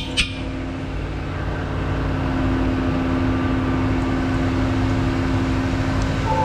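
Steady mechanical drone of running shop machinery, a continuous hum with a low steady tone that grows slightly louder about two seconds in.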